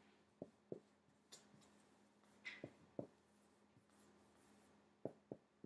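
Dry-erase marker writing on a whiteboard, faint: soft scratchy strokes and light taps as each letter is made.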